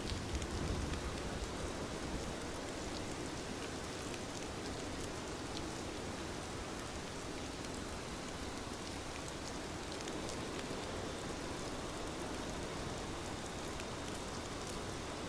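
Steady rain falling, an even hiss with scattered small drop ticks on a surface.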